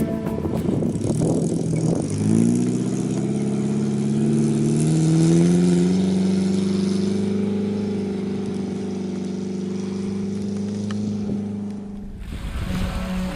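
Suzuki Jimny SJ410's four-cylinder engine revving up about two seconds in, then running steadily at raised revs before dropping away near the end.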